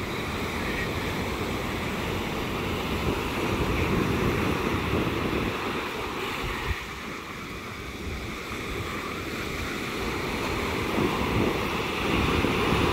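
Ocean surf breaking and washing up the beach, rising and falling as the waves come in, with wind rumbling on the microphone.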